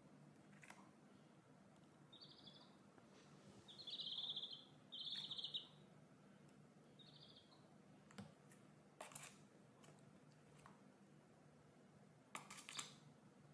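Faint high-pitched chirps from a small animal: four short, buzzy calls in the first half, with a few sharp clicks scattered through.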